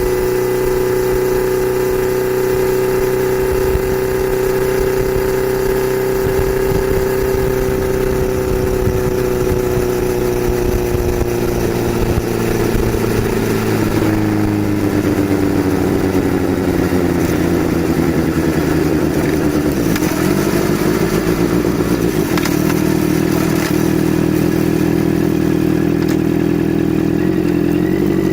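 Honda CBR650F's four-cylinder engine running through an SC-Project S1 slip-on exhaust at high revs while riding at speed. The engine note holds steady, falls in pitch over several seconds about halfway through, then climbs again near the end.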